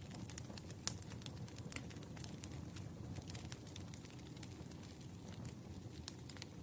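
Wood fire crackling: frequent small, irregular pops and snaps over a low steady rumble, with one louder pop about a second in.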